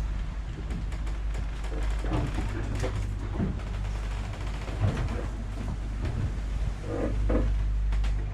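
A yacht's onboard generator running with a steady low hum, charging the house batteries after they had gone flat. Scattered knocks and clicks sound over it.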